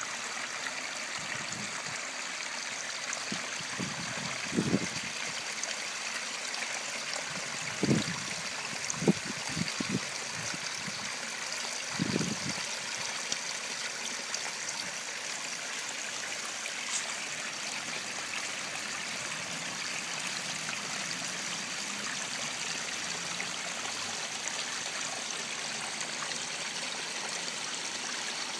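Water of a small rock waterfall trickling and splashing over stone slabs into a koi pond, a steady rushing hiss. A few short low thumps come between about four and twelve seconds in.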